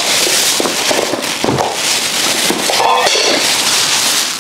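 Thin plastic grocery bags rustling and crinkling as they are handled and unpacked.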